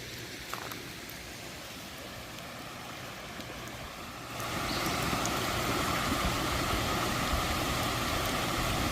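Steady rushing of running storm water, which gets louder about four seconds in.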